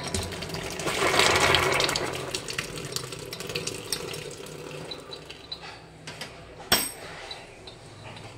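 A 14 mm spanner clicking and scraping on the brass nut of a wall-mounted kitchen tap as it is loosened. About a second in there is a brief rush of water that swells and fades, and a single sharp metallic click comes near the end.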